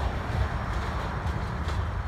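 Freight train's covered hopper cars rolling away on jointed track: a steady low rumble of steel wheels with a few faint clicks.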